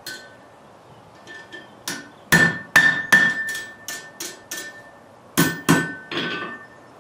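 Blacksmith's hammer striking metal on an anvil, each blow ringing with a clear metallic tone. There is a quick run of about eight blows, roughly three a second, from about two seconds in, then a short pause and three more near the end.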